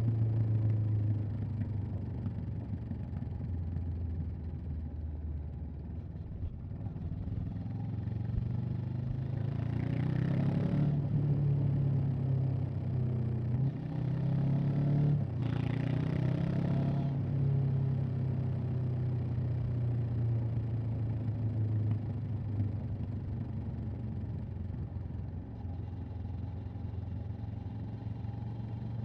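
Honda CB500X's parallel-twin engine and exhaust running steadily while the bike is ridden, heard from the rider's position. Twice, about a third of the way in and again a little past halfway, a louder rush of noise swells over it for a second or two.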